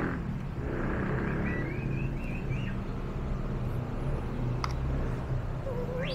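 Steady low rumble of an idling engine, with a few faint bird chirps a second and a half in and a single sharp click near the end.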